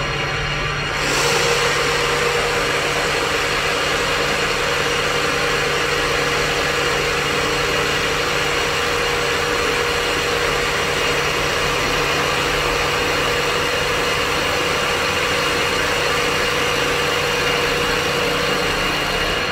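CNC wood turning lathe machining a spinning stair-handrail blank: the motor-driven tool head runs along the wood in a steady, loud mechanical whir with a hiss of cutting. The sound gets louder about a second in, when the tool bites into the wood, and then holds steady.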